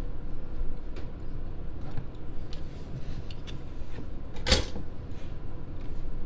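Kitchen handling noises: a few soft clicks and knocks, and one short, sharp clattering noise about four and a half seconds in, over a steady low background rumble.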